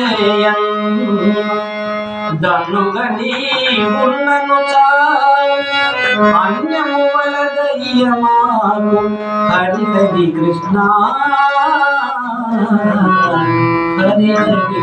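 A man singing a Telugu devotional verse, his voice gliding through an ornamented melody, over his own harmonium, whose reeds hold a steady low drone and chords beneath.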